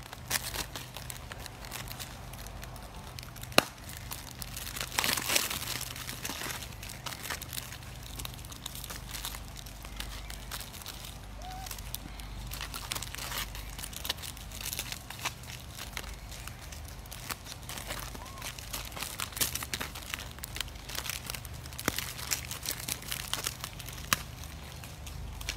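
Plastic snack-cake wrappers crinkling and tearing as macaques grab and handle them, in irregular crackles, with a sharp tap about three and a half seconds in.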